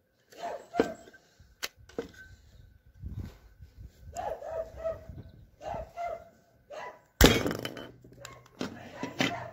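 Hand pop-rivet gun squeezed repeatedly against a pressed-steel toy part, with short crunching clicks as it pulls the rivet. About seven seconds in comes a loud sharp snap as the rivet mandrel breaks off and the rivet sets, followed by more clatter near the end.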